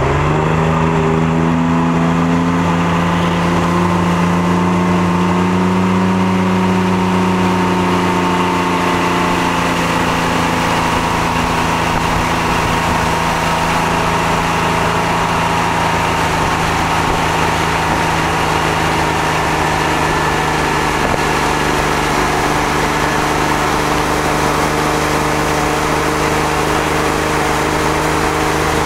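Tow boat's engine speeding up to pull a wakeboarder up out of the water, its pitch rising over the first few seconds, then running steadily at towing speed.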